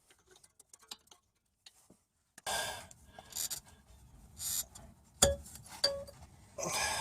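Hand tools working on the steel fasteners of a car's front suspension: several short scraping rasps, and two sharp metallic clinks with a brief ring about five and six seconds in.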